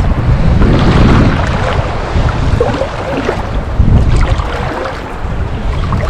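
Sea water sloshing and lapping around a waterproof camera held at the surface by a swimmer, with wind rumbling on the microphone. The level rises and falls unevenly.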